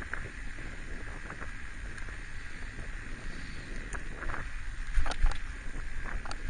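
Wind rushing over a helmet-mounted camera's microphone while a recumbent trike rolls along smooth pavement, giving a steady rushing noise with low rumble. A couple of sharp knocks come about five seconds in.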